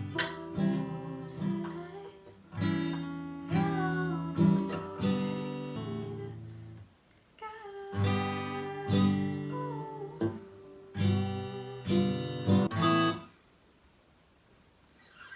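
Background music with strummed acoustic guitar and a gliding melody line, which stops about thirteen seconds in.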